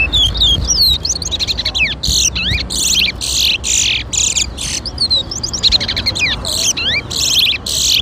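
Caged twa-twas (large-billed seed finches) singing in a song race: phrase after phrase of fast rising and falling whistles and rapid trills, with hardly a pause between them.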